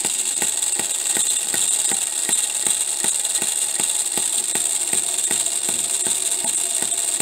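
Homemade miniature four-stroke hit-and-miss engine running at about 1500 RPM. Evenly spaced clicks, about three a second, sound over a steady high-pitched noise, and its poor-quality gears make a lot of noise.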